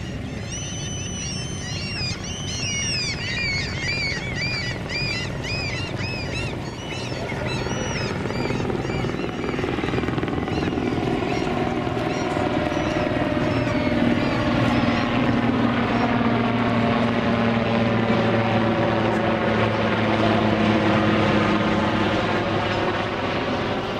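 Eurocopter AS332 Super Puma helicopter flying overhead: rotor and turbine sound growing louder over the first half and staying strong, its pitch bending slowly as it passes. Over the first several seconds high, rapid chirps sound above it.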